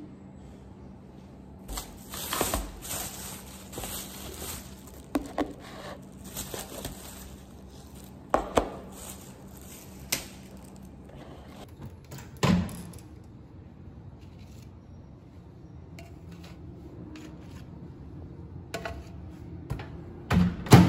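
Plastic takeaway bag rustling and plastic food tubs being handled and set down on a table, with several sharp knocks. Near the end comes a loud clunk, as of the microwave door being shut. A low steady hum runs underneath.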